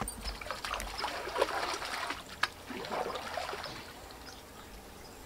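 Water trickling and lapping at the edge of a pond, with small irregular clicks and drips, fading slightly toward the end.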